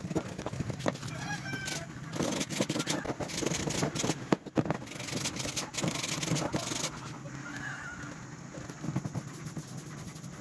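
A small pointed metal tool scraping and picking at the slots of a turned wooden spool, in quick irregular scrapes and clicks that are busiest in the middle and thin out after about seven seconds. Bird calls sound now and then in the background.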